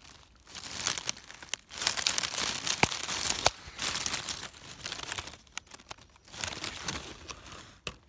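Dry leaf litter, twigs and pine needles rustling and crackling as a hand pushes through them close to the microphone, in irregular bursts with short pauses.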